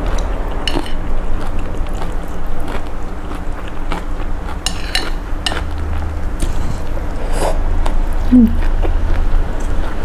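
Close-miked eating of a noodle soup: chopsticks and a metal spoon clicking against a ceramic bowl while noodles are stirred, lifted and chewed. Sharp clicks come about one, five and seven and a half seconds in, over a steady low rumble.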